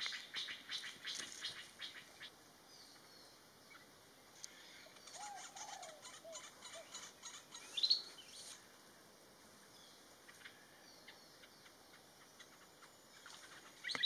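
Faint bird calls: a run of quick, sharp chips in the first two seconds, then scattered short notes, with a brief rising note about eight seconds in.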